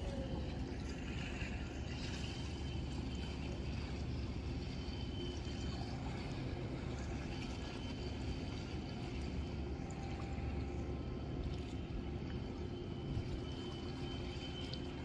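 Steady low rumble of boat engines with water sloshing, in harbour ambience.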